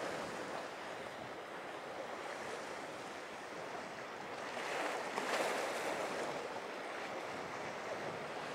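Ocean surf and breaking waves washing, with wind on the microphone; the wash swells louder about five seconds in.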